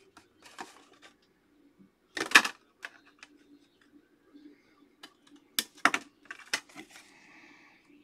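Trading cards and rigid clear plastic card holders being handled: a few sharp clicks and taps, the loudest about two seconds in and a cluster around six seconds, then a short sliding rustle near the end. A faint steady hum runs underneath.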